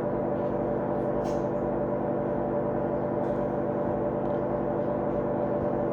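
A steady, unchanging drone of many held low tones, with a few faint light ticks.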